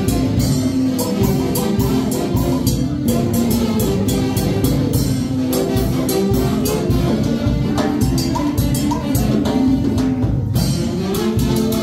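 A Latin dance orchestra playing, with a drum kit keeping a quick, steady beat of cymbal strokes under sustained melody instruments. The music breaks briefly near the end and then comes back in.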